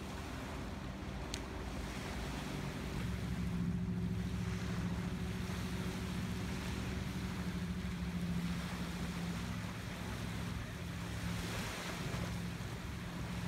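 Steady low drone of a motorboat engine that settles onto one pitch about three seconds in, over wind and small waves lapping at the shore.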